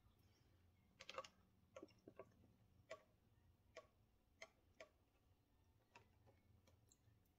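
Faint, irregular clicks and taps of a metal fork against a clear plastic takeout container as a pumpkin roll is cut and eaten, about ten in all.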